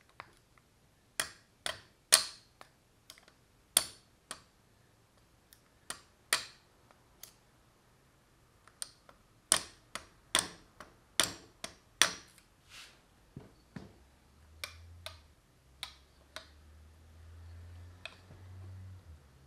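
A couple of dozen sharp, irregular taps on the wrist pin of a Honda CR125 two-stroke piston, knocking the pin out so the piston comes off the connecting rod. The taps come in two flurries, with a few scattered ones after.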